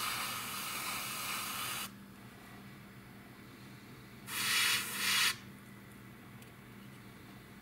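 Gravity-feed airbrush spraying paint in two bursts of airy hiss, one about two seconds long at the start and a shorter one of about a second midway, over a faint steady low hum.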